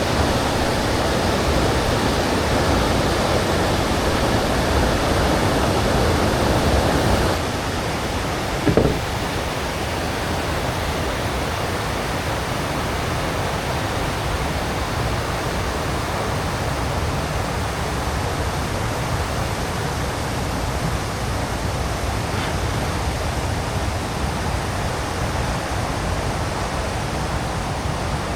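Water rushing over a river weir: a steady rushing noise that drops a little in level about seven seconds in. A single brief knock comes about nine seconds in.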